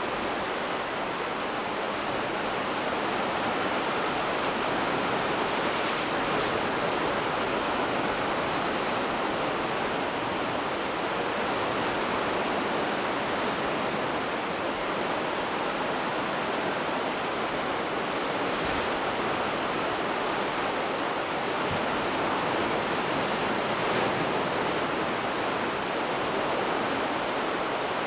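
Sea surf washing steadily, an even rushing noise with no distinct breaks or impacts.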